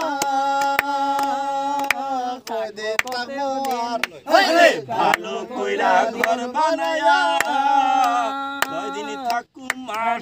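A group of men singing together in long held notes, kept in time by a steady beat of hand claps. About four seconds in, one voice breaks into a loud sliding cry.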